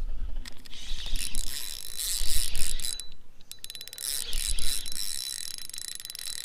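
Fishing reel working, a mechanical ratcheting click with a thin steady whine, and a fast run of clicks about three and a half seconds in.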